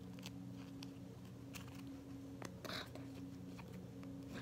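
Faint, irregular soft clicks from the silicone bubbles of an avocado-shaped pop-it fidget being pressed, over a steady low hum.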